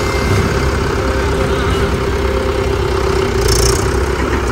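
Mahindra 475 DI tractor's diesel engine idling steadily.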